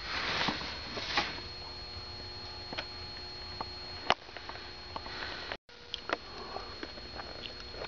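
Quiet small-room tone with a steady high-pitched whine and scattered light clicks and knocks. There is a short sniff or breath about half a second in, and the sound cuts out completely for a moment just past the middle.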